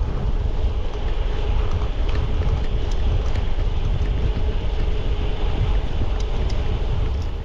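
Steady wind rumble buffeting the microphone while riding a bicycle along a road. It cuts off suddenly at the end.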